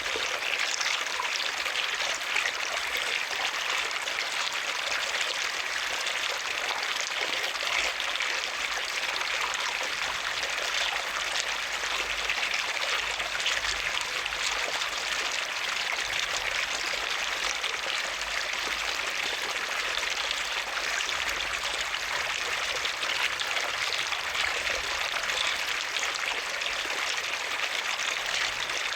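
Running water splashing and trickling in a steady stream.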